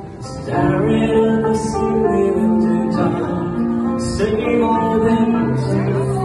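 A song with acoustic guitar accompaniment and a singing voice holding long notes, growing louder about half a second in.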